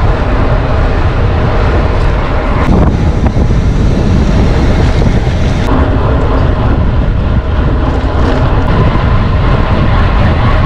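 Strong wind buffeting the microphone during a bicycle ride, a loud, steady rumble.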